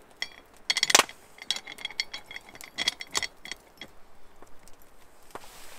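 Metal hook jangling and clinking against the handle of a cast iron pot as it is hooked on. The clinks come in several ringing clusters over the first three seconds or so, then it goes quieter, with a single tap near the end.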